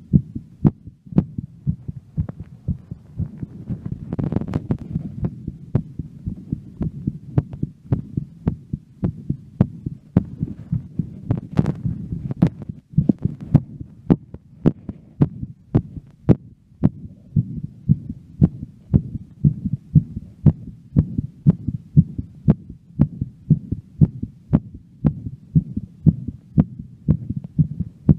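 A woman's heartbeat after a workout, a steady run of low thumps at about one and a half beats a second. A brief rush of noise comes about four seconds in.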